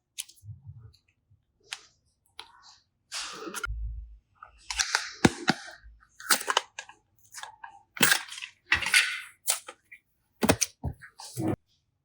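Slime being squished and pressed by hand, making a run of short, irregular sticky pops, crackles and clicks, with a few soft low thumps.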